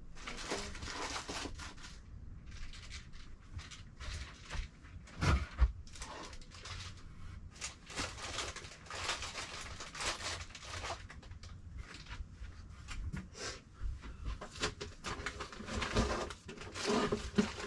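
Items being rummaged through and sorted in cardboard boxes: irregular rustling of packaging and cardboard with small knocks, and one louder thump about five seconds in.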